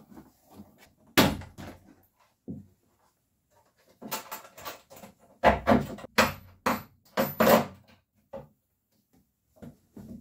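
Hard plastic organizer box knocking and clattering against the cabin bulkhead as it is handled and its hinged front panel is swung open. Separate clunks at first, then a quick run of loud knocks from about four to eight seconds in.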